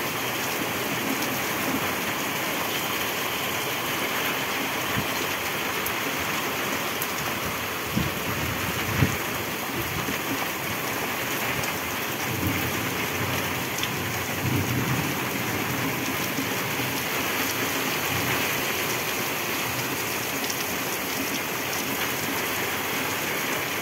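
Heavy rain falling steadily in a thunderstorm, with low rumbles of thunder in the middle and a short, louder thud about nine seconds in.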